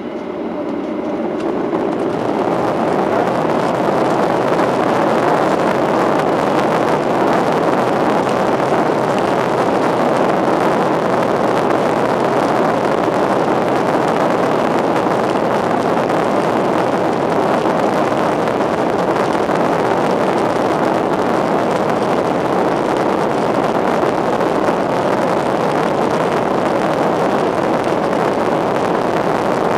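Boeing 737-800's CFM56-7B jet engines spooling up to takeoff power over the first couple of seconds. Then comes the loud, steady rushing noise of the takeoff roll.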